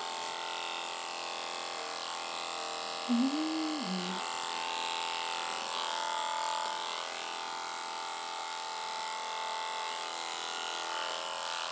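Electric dog-grooming clipper running with a steady hum as it trims a dog's coat. About three seconds in, a short voice-like sound rises and falls in pitch.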